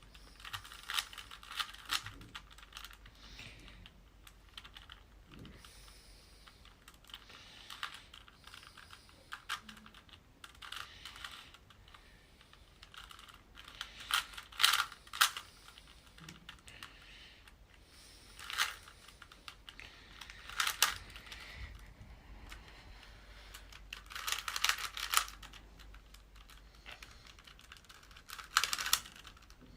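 Plastic Rubik's Cube being twisted quickly as it is solved: rapid clicking of the turning layers, in short flurries with pauses between.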